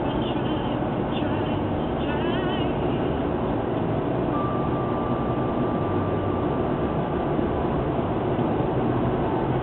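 Steady tyre, wind and engine noise inside a car's cabin while it is driven at motorway speed.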